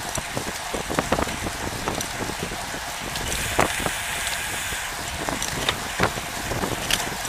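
Bicycle riding at speed on a tarmac road, heard from a camera mounted on the bike: steady wind and road noise with many irregular clicks and rattles. The hiss grows louder for a couple of seconds near the middle.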